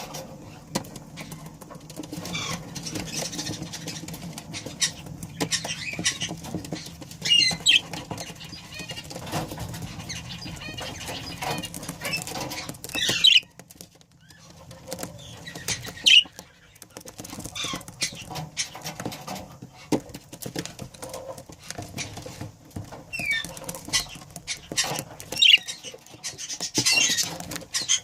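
Budgerigars chirping and chattering in short warbling bursts, among scattered light clicks and scratches.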